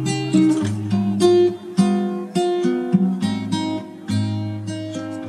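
Background music: an acoustic guitar melody of plucked notes, each struck sharply and dying away.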